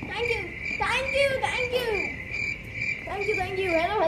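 Crickets chirping in a steady, high, pulsing trill, with a girl's voice rising and falling over it in the first half and again near the end.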